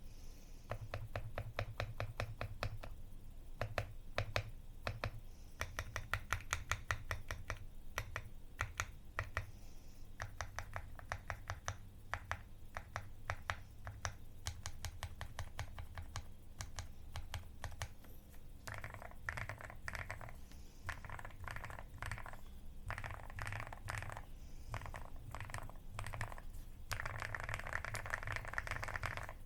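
Typing on a Xinmeng A66 aluminium custom mechanical keyboard with lubed Gateron Milky Yellow linear switches, a polycarbonate plate and XDA-profile keycaps: a steady run of keystroke clicks that turns into denser, faster bursts about two-thirds of the way in.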